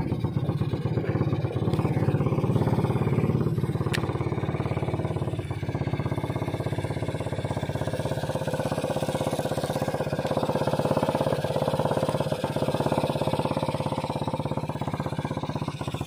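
A small boat engine running steadily, an even droning hum.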